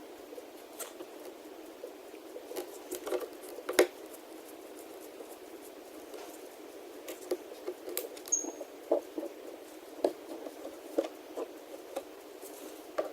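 Small clicks, taps and scratching of hands and a small tool working screws and parts on an iPad Mini. The sharpest click comes about four seconds in.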